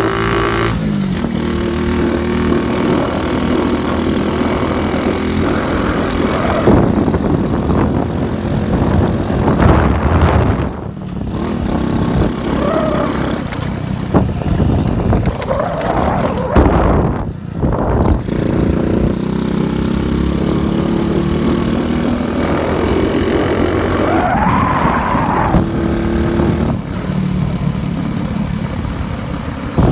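Motorcycle engine running while riding, its pitch rising and falling with the throttle and gear changes, with wind noise over it. The engine note drops off briefly about 11 seconds in and again about 17 seconds in.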